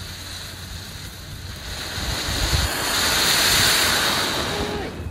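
Ground fountain firework spraying sparks with a steady hiss that swells about halfway through and dies down near the end, with wind buffeting the microphone.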